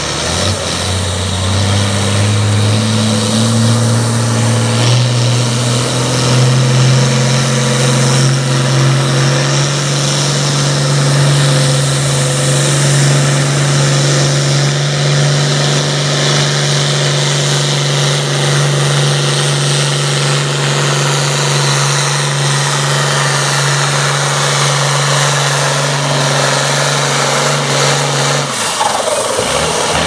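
International Harvester 1066 Turbo's six-cylinder turbo-diesel engine running flat out under the load of a pulling sled. Its pitch climbs over the first few seconds, then holds steady at high revs, and it stops about a second and a half before the end.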